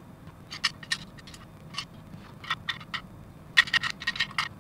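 Small hard plastic model kit parts clicking and rattling against a clear plastic storage box as they are handled, in short clusters of sharp clicks, the densest and loudest near the end.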